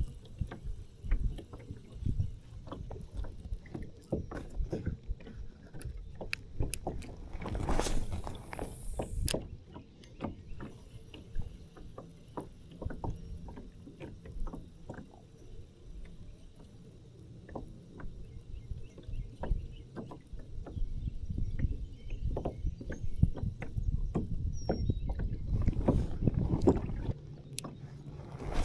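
Handling sounds in a fishing kayak: scattered clicks and knocks of gear against the hull, with a brief rushing sound about eight seconds in.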